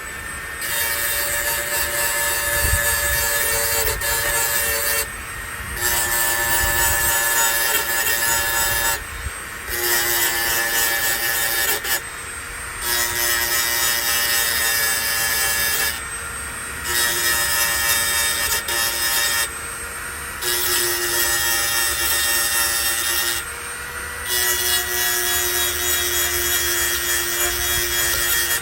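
A power grinding tool with its motor running is put to hedge trimmer blade teeth in repeated passes of a few seconds each, sharpening the cutting edges. Each pass is loud and gritty, with a note that shifts with the load, and short lifts between passes where only the motor is heard.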